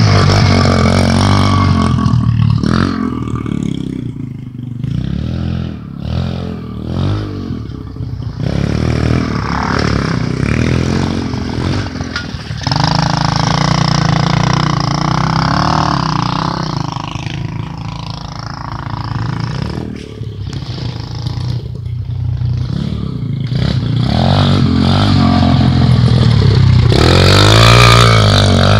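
Small dirt bike engine revving up and down over and over as it is ridden over rough wooded ground. It is loudest a little before the middle and again near the end.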